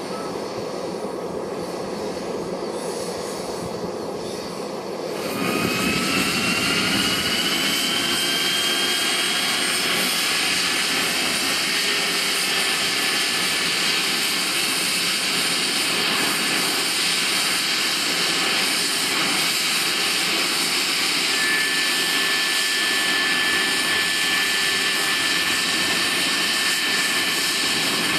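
Small gas-turbine engine of an RC model Hughes 500E helicopter running with its rotor turning. A more distant engine-and-rotor sound lasts about five seconds, then it is suddenly louder and close, with a turbine whine that rises in pitch and settles into a steady high whine.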